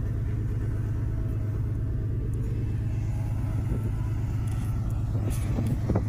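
Dodge pickup's engine running with a steady low rumble as it pulls a boat trailer slowly through soft sand.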